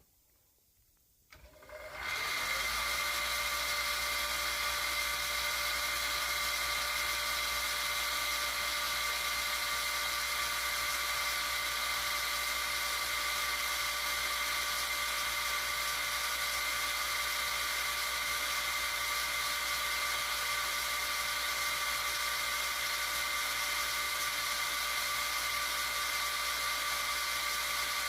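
Near silence, then about two seconds in a machine tool's electric motor starts and runs steadily with a steady whine, used for drilling holes in cast-iron castings.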